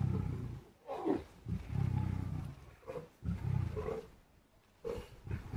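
Lion growling over a zebra kill: a series of deep, low growls, three long ones about a second and a half apart and a shorter one near the end.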